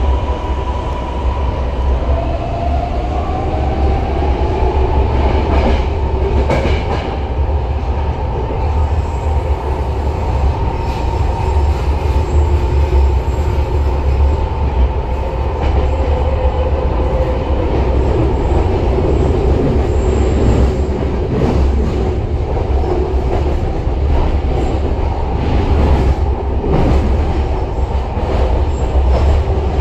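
Rapid-transit train running at speed, heard from inside the passenger car: a steady heavy low rumble with a high whine over it that rises in pitch a few seconds in and then holds.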